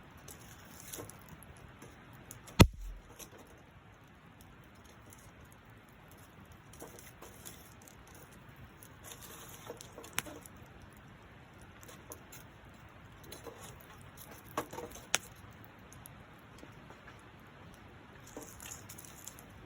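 Wood campfire crackling faintly, with a few sharp pops: the loudest about two and a half seconds in, and two close together about fifteen seconds in.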